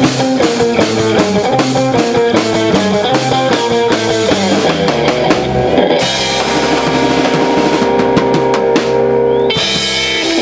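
Live rock band playing electric guitar, bass and drum kit: a moving guitar line over bass and drums, then about six seconds in the band holds a final sustained chord under a run of rapid drum hits that stops sharply near the end, ending the song.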